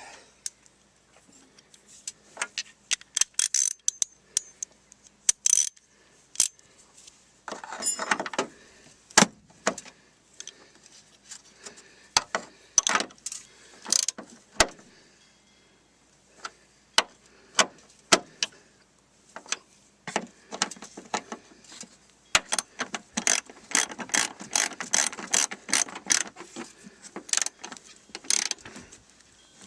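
Hand socket ratchet clicking in short runs as the nuts on top of a car's strut mount are tightened, with a longer, quicker run of clicks near the end.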